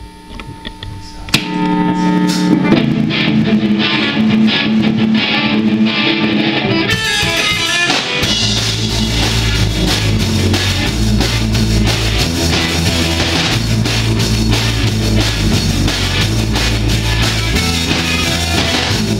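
Live rock band playing: electric guitar starts the song about a second in, and the bass and drums come in at full weight about eight seconds in.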